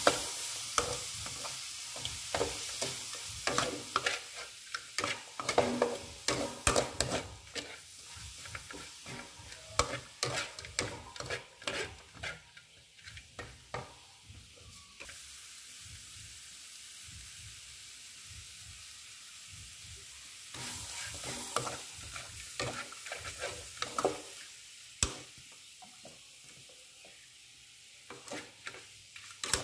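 Metal spatula scraping and knocking against the pan as chicken pieces with chili are stir-fried, over the sizzle of the food frying. The stirring comes in bursts through the first dozen seconds, again a little after twenty seconds and near the end, with steady sizzling in between.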